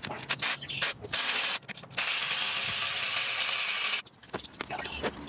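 Hand ratchet wrench working bolts loose: separate clicks at first, then a fast run of clicks blurring into a steady rasp for about two seconds that stops abruptly.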